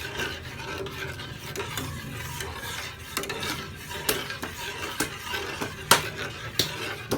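Agar jelly mixture being stirred in a pot on the stove, the utensil scraping the pot with scattered light knocks and one sharper knock about six seconds in. The mixture is starting to thicken.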